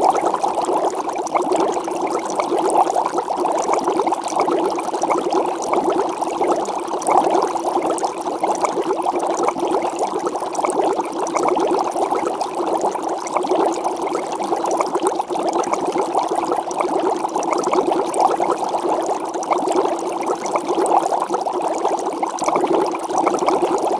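Water boiling in a stainless steel pot: a steady bubbling.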